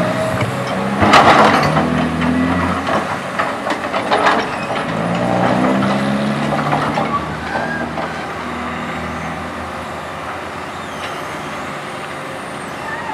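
Caterpillar tracked hydraulic excavator's diesel engine running and rising and falling in pitch as it takes load while the bucket digs and lifts wet soil, with clanks and scrapes of the bucket. The loudest is a clank about a second in. The engine settles to a steadier note in the second half.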